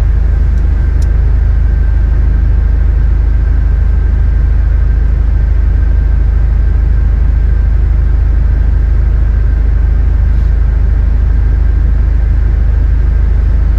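Steady in-cabin sound of a Subaru WRX's turbocharged flat-four idling while parked, a constant low rumble mixed with the air conditioning blower running a little loud and a faint steady whine.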